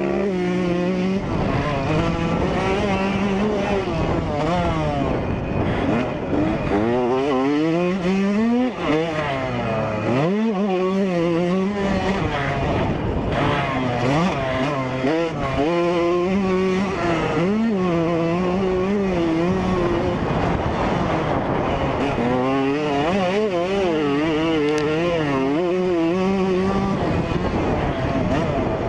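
2003 Yamaha YZ125 two-stroke dirt bike engine at hard riding, heard from on the bike. Its pitch rises and falls again and again as the rider works the throttle and shifts, with some short stretches held at a steady pitch.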